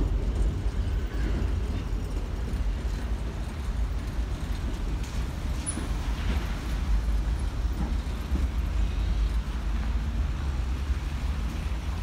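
71-619KT tram crossing a concrete overpass overhead: a steady low rumble of its wheels and running gear on the bridge.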